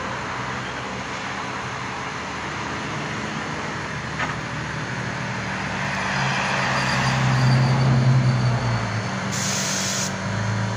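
Road traffic noise, with a motor vehicle's low engine hum swelling to its loudest about three-quarters of the way through and then easing off.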